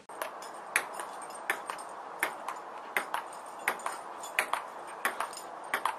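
Table tennis ball clicking in a steady back-and-forth rally, a sharp tick about every three quarters of a second, often as a quick pair of a bounce on the table and a bat hit.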